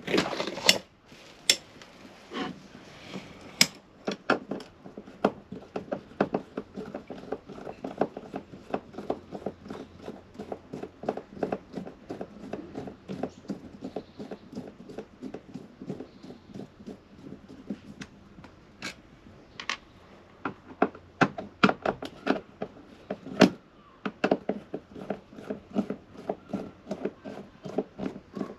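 Hand screwdriver undoing the screws of a caravan window's hinge fittings: a long run of quick, even clicks, with a few louder knocks near the start and a sharp click near the end.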